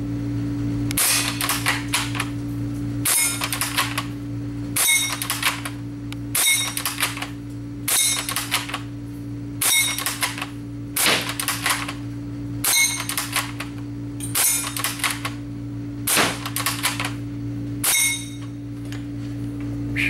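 G&G G96 green-gas bolt-action airsoft sniper rifle being fired about eleven times at a steady pace, roughly one shot every one and a half to two seconds. Each shot is a sharp crack with shorter clacks as the bolt is worked between shots.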